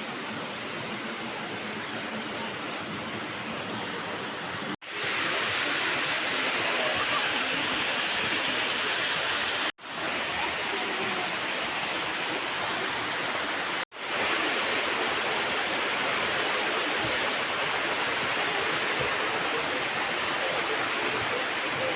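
Steady rush of water tumbling down the cascades of a mountain creek. The sound breaks off sharply three times and resumes, louder and brighter after the first break.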